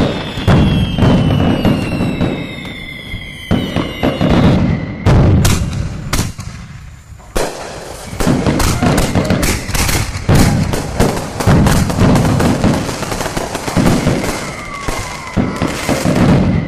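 Fireworks going off: repeated sharp bangs with whistling tones that fall in pitch, a short lull about six seconds in, then a dense run of rapid bangs and crackles through most of the second half.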